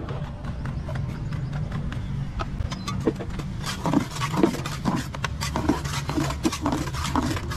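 Steady low machine hum. From about halfway through it is joined by a quick run of short scrapes and knocks from a hand trowel working in the mix pit.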